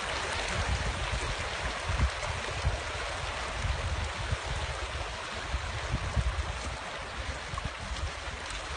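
Rainwater runoff stream rushing over a stony dirt track, a steady watery rush, with wind buffeting the microphone in irregular low rumbles.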